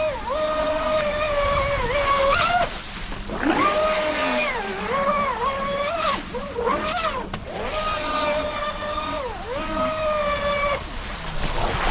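Traxxas Spartan SR RC boat's 6S brushless motor whining at speed, its pitch dipping and climbing several times as the throttle is backed off and reapplied. The whine drops away briefly about three seconds in and again near the end, over a hiss of water spray.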